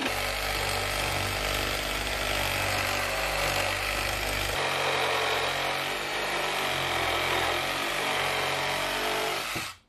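Milwaukee FUEL cordless one-handed reciprocating saw running steadily as it cuts through wood, its note shifting about halfway through and then cutting off abruptly at the end.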